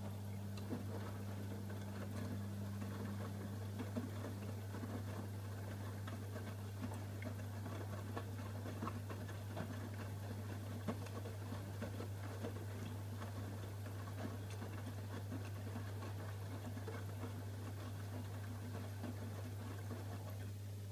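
AEG Öko-Lavamat 85739 washing machine running through its wash cycle: a steady low hum under a constant busy crackle of small clicks and rustles. A second, slightly higher hum fades out about four seconds in.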